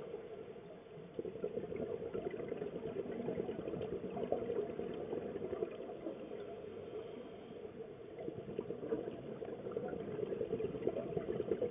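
Underwater sound picked up by a diving camera: a continuous, muffled crackle of many small clicks that swells and eases.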